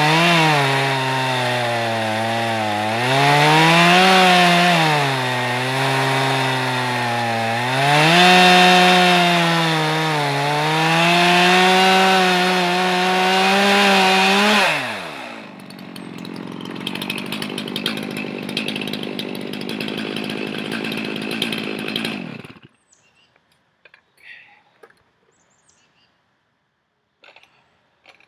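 Stihl MS 391 two-stroke chainsaw on a chainsaw mill ripping a log lengthwise, its engine note sagging and recovering again and again as the cut loads it. About halfway through the engine pitch drops away and a lower, even rushing noise carries on for several seconds before stopping abruptly, followed by a few faint knocks.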